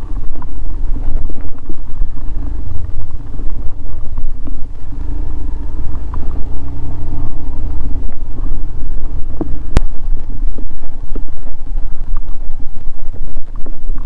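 Motorcycle engine running while riding, over a heavy low rumble of wind on the microphone, with one sharp click about ten seconds in.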